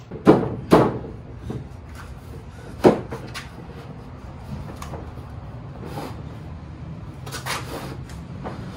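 Wooden knocks and clatter as pine boards of a glued-up table top are handled and pushed into place: two sharp knocks at the start, a louder one about three seconds in, and a few fainter taps later.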